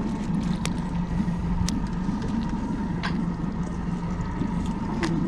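Steady low mechanical hum of the fishing boat's machinery, with a faint steady whine above it. A few sharp light clicks come through it, four in all.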